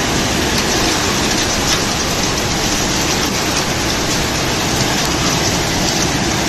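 Heavy wind-driven rain pouring down in a violent storm, a loud, steady wash of noise.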